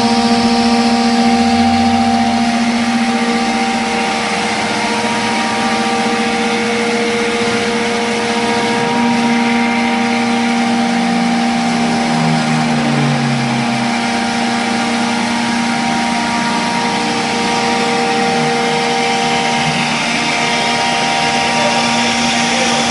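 CNC router's 7.5 HP spindle running with a steady whine while the bit cuts through melamine-faced 18 mm MDF in a single pass, a dense cutting hiss over the whine. A lower tone shifts briefly around the middle.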